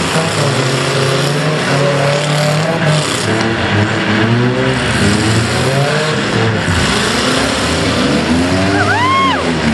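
Several demolition derby cars' engines revving at once, their pitch rising and falling as they push and manoeuvre in the arena. Near the end a brief squeal rises and then falls.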